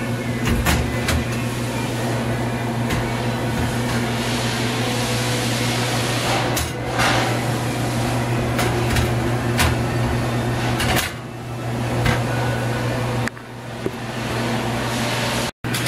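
Steady low machine hum, with scattered light metal clicks and knocks as a galvanised sheet-metal deck panel is handled and seated in a vending machine cabinet.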